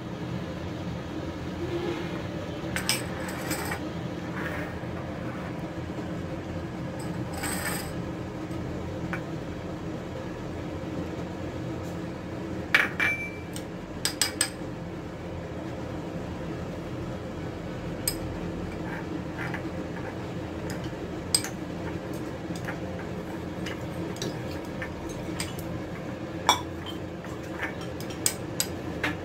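Steel spoon clinking and scraping against a small glass bowl while stirring chopped onion, green chilli and chilli powder: scattered sharp clinks, the loudest about halfway through with a brief ring. A steady low hum runs underneath.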